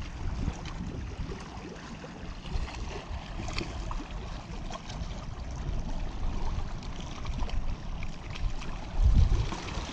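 Outdoor wind rumbling on the microphone, with small waves lapping against the shore and a louder low rumble near the end.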